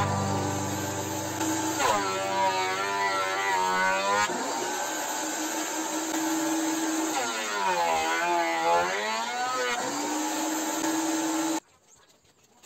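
Background music with a bowed string melody sliding up and down between held notes. It stops abruptly near the end, leaving near silence.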